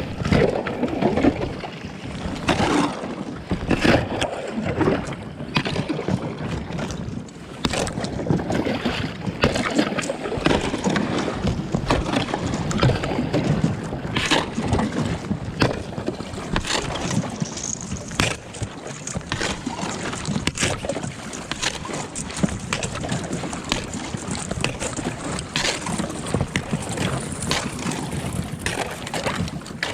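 Thin skim ice on a lake cracking, crunching and scraping against the hull of an inflatable Alpacka packraft as it is paddled through freeze-up ice, with paddle strokes and water sloshing. Irregular sharp cracks and clicks keep coming over a steady rushing, crunching noise.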